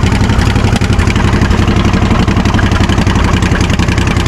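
Small engine of an off-road mud mower idling steadily close by, a rapid, even run of firing pulses.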